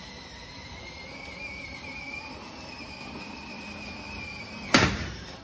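A balloon pops with one sharp, loud bang about five seconds in, over a steady high-pitched whine that wavers slightly in pitch.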